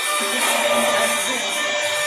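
CNC woodworking router running, its spindle giving a steady whine made of several held tones, a little busier in the middle as it works the wood.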